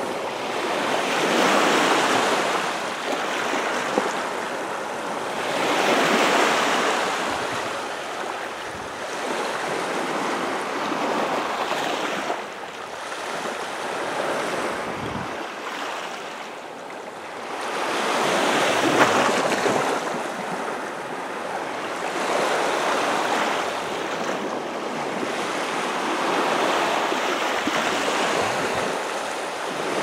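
Small waves washing in over a sand-and-pebble beach, the surf swelling and fading every few seconds.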